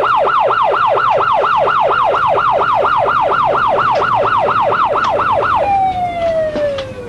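Siren of a fire-department paramedic vehicle, loud, in a rapid yelp of about four rising-and-falling sweeps a second. A little over five seconds in it switches to a single tone that slides down in pitch as it winds down.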